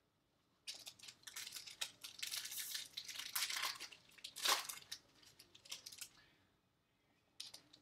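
Foil wrapper of a Bowman baseball card pack being torn open and crinkled: a run of scratchy crackling rustles, loudest a little past the middle.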